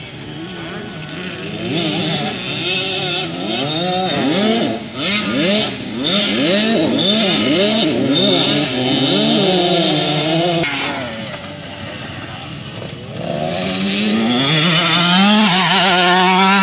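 Several two-stroke motocross bikes revving up and falling back in pitch as they ride around the track, the engine notes overlapping. After a quieter spell, one bike accelerates and passes close, loudest near the end.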